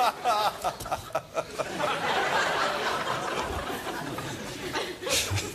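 Studio audience laughter: a man's chuckles in the first second or so, then the whole crowd laughing steadily from about two seconds in.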